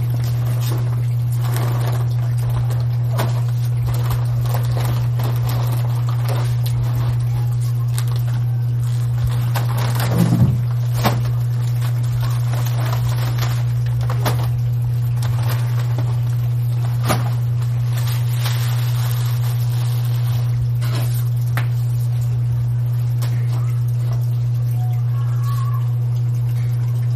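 A steady low hum throughout, with a few knocks and scrapes from work at a charcoal kettle grill, the loudest about ten seconds in.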